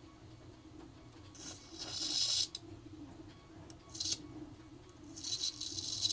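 High-frequency coil output wire arcing to earth ground: three bursts of crackling sizzle, about a second in, around four seconds and near the end, over a faint steady hum.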